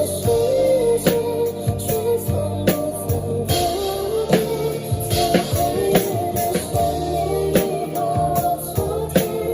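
A song playing: singing over a backing track with a steady drum beat.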